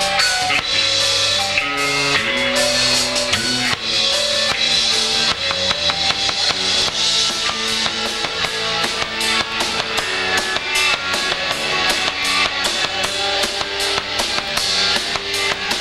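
Live rock band playing an instrumental passage on electric guitar and drum kit. Held notes step through the first few seconds, then the drums get busier, with rapid hits from about five seconds in.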